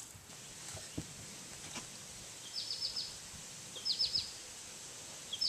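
A songbird repeating a short, quick phrase of four or five high chirps, three times about a second apart, over faint outdoor background hiss. A couple of faint knocks come in the first two seconds.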